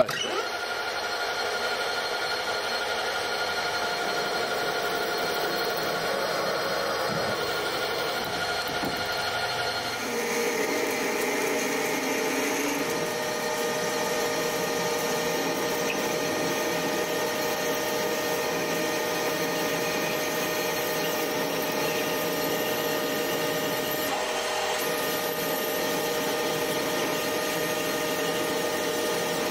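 Colchester Master 2500 metal lathe running steadily while a drill in the tailstock chuck bores into the spinning metal bar, a steady whine made of several held notes. The pitch pattern shifts about ten seconds in, where the center drill gives way to the twist drill.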